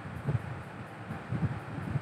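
Low, uneven rumble with soft irregular bumps over a steady hiss: background and handling noise on the recording microphone.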